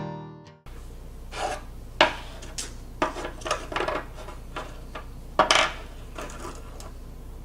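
Acoustic guitar music fading out, then a series of light clinks, taps and short rubbing scrapes from small hardware parts being handled and fitted together, the sharpest about two seconds in and again past five seconds, over a low steady hum.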